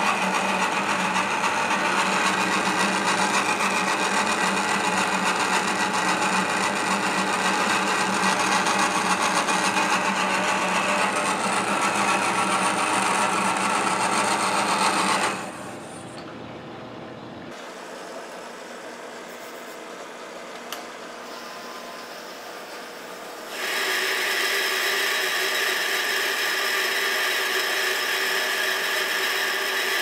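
Metal lathe turning the outside of a ductile iron blank, with a steady machining noise of the tool cutting the spinning part. About halfway through it drops much quieter for several seconds, then the cut resumes loud with a steady high tone.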